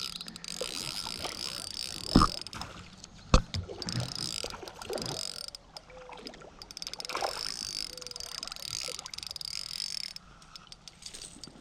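Spinning fishing reel being cranked in three spells with short pauses, as a smallmouth bass is played and brought in, with two sharp knocks about two and three seconds in.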